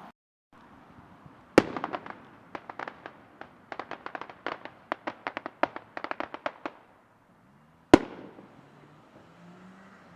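Fireworks going off: a loud bang, then a quick run of sharp crackling pops for about four seconds, then another loud bang with an echoing tail.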